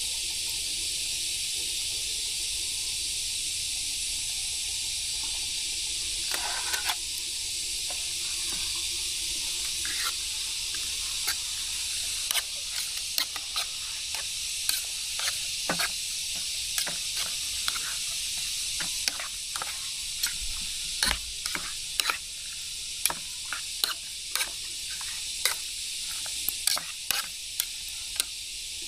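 Steady hissing with sharp crackling pops, few at first and then several a second from about halfway through, typical of a cooking fire or grilling over flames.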